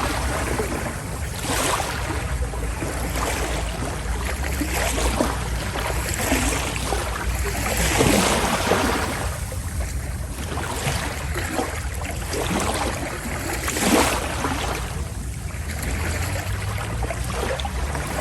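Sea water rushing and splashing along a passenger ferry's hull, swelling every few seconds, over a steady low rumble from the ship.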